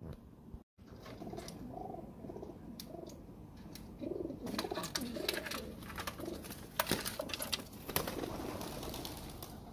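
Domestic pigeons cooing over and over, with scattered light clicks and taps among the calls.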